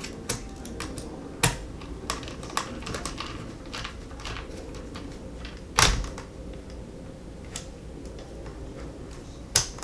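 Small clicks and taps of a precision screwdriver working screws into a plastic multimeter case, with the housing being handled. There are a few louder knocks, the loudest about six seconds in.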